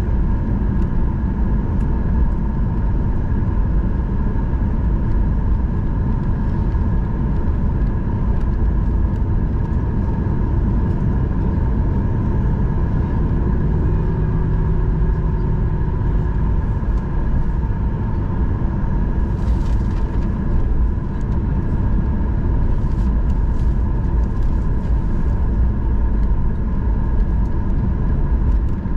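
Boeing 737-800's CFM56 jet engines running at idle, heard from inside the cabin as a steady deep rumble with a constant high whine on top. A few faint rattles come about two-thirds of the way through.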